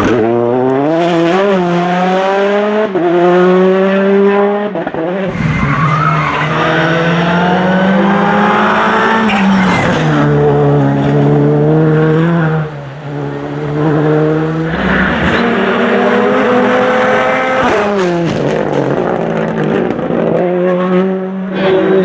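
Several rally cars, among them a Peugeot 208 T16 R5 and a Škoda Fabia R5, passing one after another at full attack, their engines revving hard. The pitch repeatedly climbs and falls away as they change gear.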